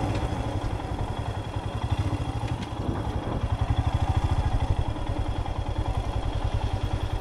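Motor vehicle engine running steadily while driving along a road, with a fast, even low pulsing.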